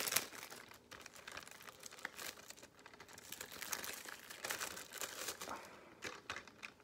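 Plastic shrink wrap crinkling and tearing as it is pulled off a DVD case, in quick irregular crackles, with a couple of louder snaps near the end.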